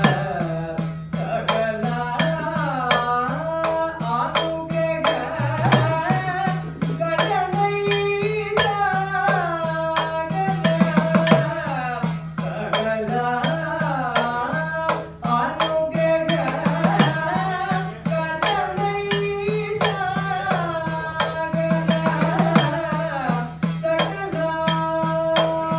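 Sopana sangeetham: a devotional Kerala temple song, sung with gliding, ornamented melody over a steady low drone, accompanied by rapid strokes on the idakka hourglass drum.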